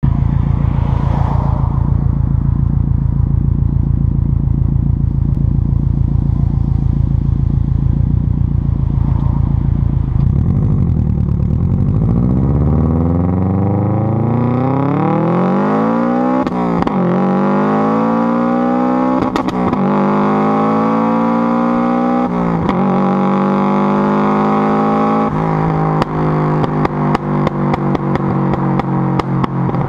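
Subaru Impreza GC8's flat-four engine through an aftermarket 'twister' exhaust, heard close to the tailpipe. It runs low and pulsing for about ten seconds, then climbs in pitch as the car pulls away and accelerates through several gear changes. Near the end comes a rapid run of sharp pops and crackles from the exhaust.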